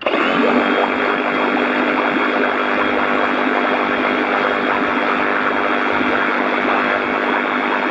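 Flex FX2271 24-volt brushless cordless reciprocating saw running fully submerged in water. The motor drones steadily while the moving blade churns and splashes the water. It starts suddenly.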